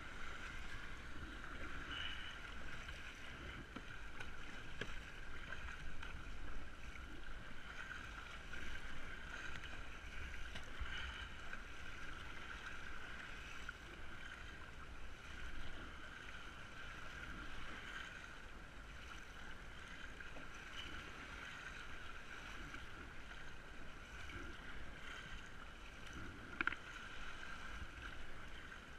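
Water sloshing and lapping around a kayak paddled on open water, over a steady hiss and a low wind rumble on the microphone.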